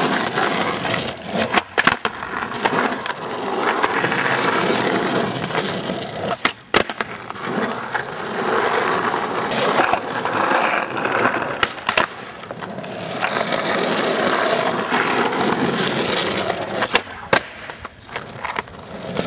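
Skateboard wheels rolling on rough asphalt, a steady gritty roar, with a handful of sharp clacks of a board striking the pavement, several of them close together near the end.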